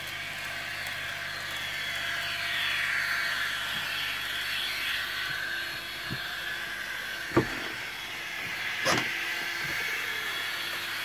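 Kato N-scale VT 18.16 model train running along the track, its small electric motor giving a steady whine that glides slightly in pitch. Two sharp clicks come about seven and nine seconds in.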